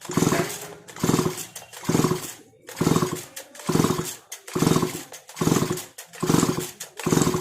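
STIHL MS 180 chainsaw's recoil starter pulled about nine times in quick succession, just over once a second, each pull spinning the engine over with a short whirring burst. The spark plug is out of the cylinder, so the engine turns freely without firing; the pulls are a spark test of the ignition.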